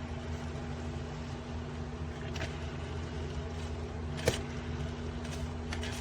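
Electric coffee percolator heating its water just after being switched on, before it starts perking: a steady low rumble and hum, with a few faint ticks and one sharper click about four seconds in.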